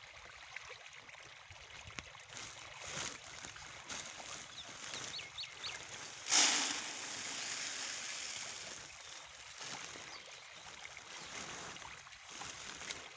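A dense school of fish thrashing and splashing at the surface of a pond, a steady churning patter of water, with one louder splash about six seconds in.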